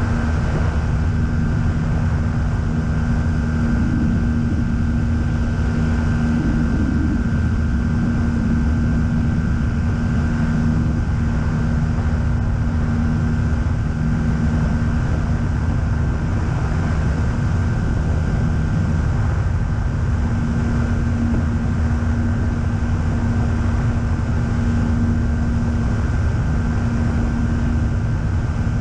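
Pipistrel Sinus motorglider's engine and propeller running steadily in flight after takeoff, a constant drone with wind rushing over the wing-mounted camera's microphone.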